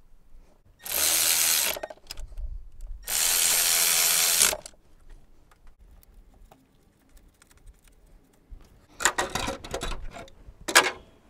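Cordless electric ratchet running in two short bursts, about a second and then a second and a half, tightening fasteners as the thermostat housing is bolted back on. Near the end come a few shorter, ragged bursts and a sharp click.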